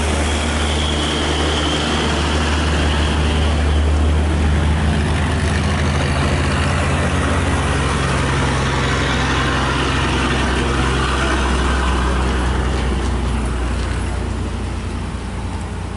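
Heavy truck's diesel engine running close by, a steady low drone with road traffic noise, growing a little louder a few seconds in and fading near the end.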